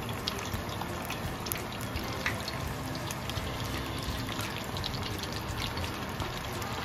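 Battered chicken thigh pieces deep-frying in 350-degree oil, the second fry for crispness: a steady sizzling bubble dotted with many small crackles.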